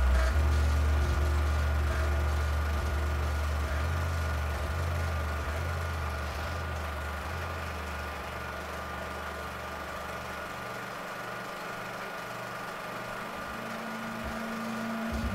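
Beatless stretch of electronic music: a low, steady bass drone that fades out about ten seconds in, over a faint steady high tone and hiss. A higher held note comes in near the end.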